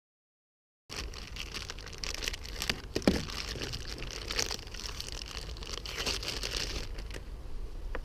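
Handling noise: a crinkling rustle with scattered small clicks and a knock about three seconds in. It starts about a second in, after dead silence.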